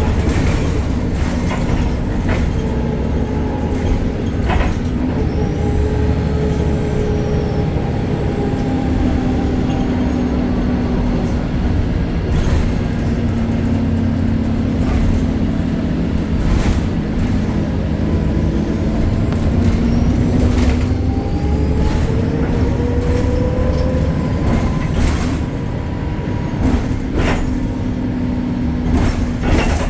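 BredaMenarini Avancity Plus city bus with a Deutz diesel engine and ZF gearbox, running under way, its engine pitch rising and falling with speed. A high whine rises and falls twice, once a few seconds in and again past the middle, over frequent knocks and rattles.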